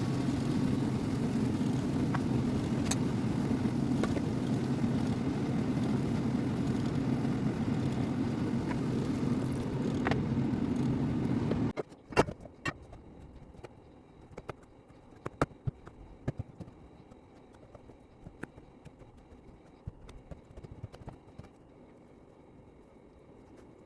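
A loud, steady rumbling noise that cuts off suddenly a little under halfway through. After it comes a quiet stretch of scattered light clicks and knocks, typical of kitchen utensils being handled.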